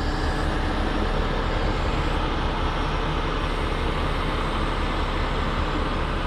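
Heavy rotator tow truck's diesel engine running steadily, powering the hydraulics as the boom is reached out and swung.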